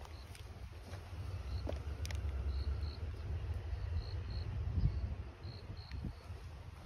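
Insect chirping: short high chirps repeated in twos and threes, over a steady low rumble.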